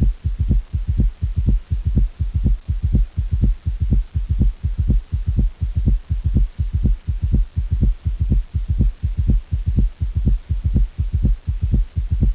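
Recorded heart sounds from auscultation: a steady, even run of low thumps, about three a second, over a constant low hum. It is played as an example of an unusual heart murmur.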